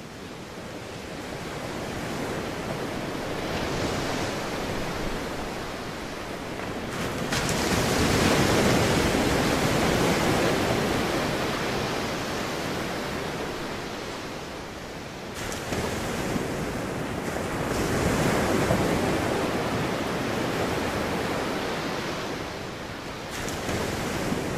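Ocean surf: a hissing wash of breaking waves that fades in, then swells and recedes slowly, with two big swells about ten seconds apart.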